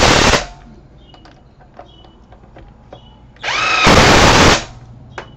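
Cordless half-inch impact driver running lug nuts back on, in two bursts. Each burst is a rising motor whine that turns into a rapid hammering. The first ends just after the start; the second starts about three and a half seconds in and lasts about a second.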